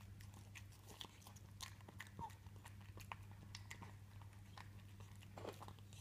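A Devon Rex cat chewing and crunching broccoli and mashed potato from a bowl: faint, irregular crunchy clicks, several a second, over a steady low hum.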